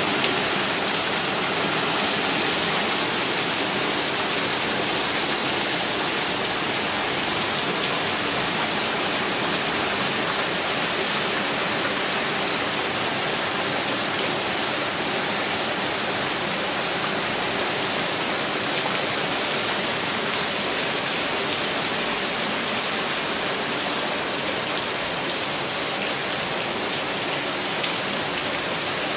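Heavy rain and rushing water, a steady dense hiss.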